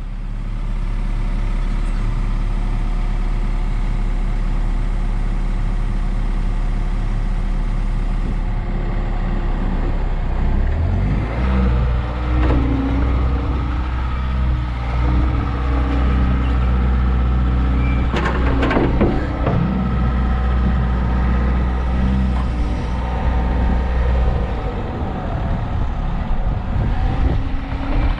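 Bobcat T66 compact track loader's diesel engine running steadily; from about ten seconds in it comes under load and its note shifts as the hydraulics work the quick-attach. A few short metal clanks sound partway through as the attachment is released and re-engaged.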